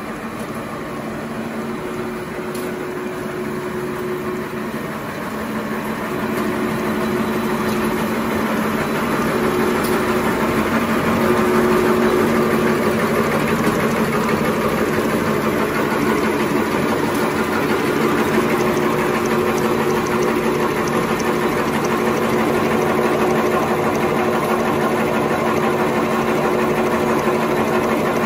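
XY-OQ-7000-A automatic glue-lamination napkin tissue machine running: the steady mechanical noise of its rollers, folding and transfer parts, with a steady low hum underneath. It grows louder over the first several seconds, then holds steady.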